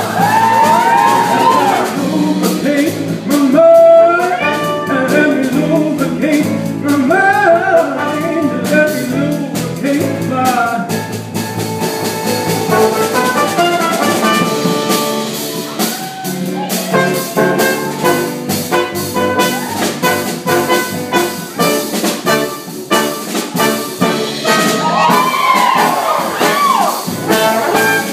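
Brass-led jazz show music with trumpets and trombones playing an instrumental break, recorded live in a theatre.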